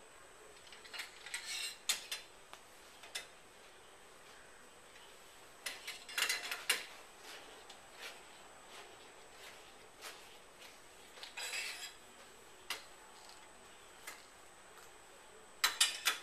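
Sample holders being set onto the racks inside a Genevac HT12 evaporator chamber: groups of light clattering clicks every few seconds, with single ticks in between.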